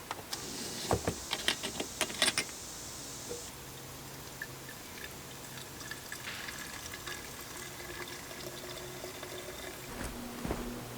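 Premixed two-stroke fuel being poured into a chainsaw's fuel tank, a hissing pour lasting about three seconds with sharp clicks and knocks of the can and cap. Quieter handling sounds follow.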